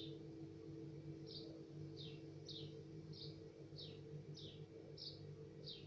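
A bird chirping, about nine short high notes at a fairly even pace, each note falling in pitch, over a faint steady low drone.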